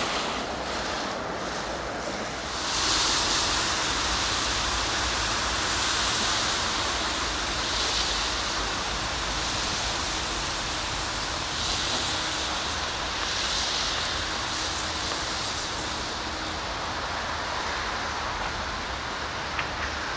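Small diesel shunting locomotive approaching with a short freight train: a steady rushing hiss that swells and fades several times, over a low rumble that grows about two and a half seconds in.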